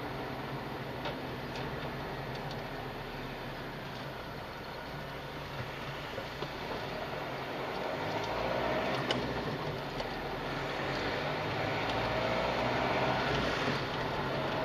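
Car driving, heard from inside the cabin: steady engine and tyre noise that grows louder with a faint rising whine in the second half as the car picks up speed, with a few light clicks.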